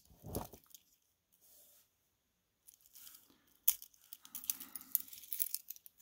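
Zelos Swordfish's stainless-steel link bracelet and extended fold-over clasp being handled. After a quiet start there is a sharp click just under four seconds in, then a run of small metallic clicks and rattles.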